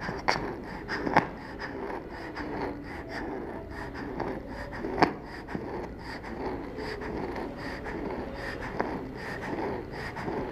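A young child's breathing with a wheeze when breathing out, not stridor, which is a harsh sound on breathing in. A few sharp clicks or knocks, the loudest about five seconds in.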